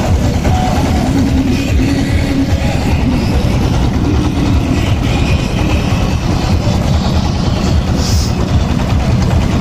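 An engine running steadily with a dense low rumble.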